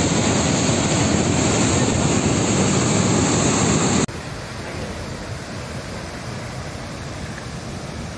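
Floodwater rushing through a dam's open spillway gates, a loud steady rush of water that cuts off abruptly about four seconds in. It gives way to the quieter, steady rush of a swollen river in flood.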